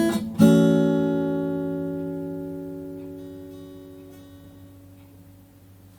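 Guitar music ending: a final strummed chord about half a second in rings out and slowly fades away.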